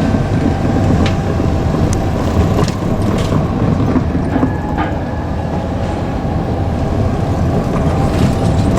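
KiHa 200 diesel railcar running with a steady low rumble, with a few sharp metallic clicks in the first half.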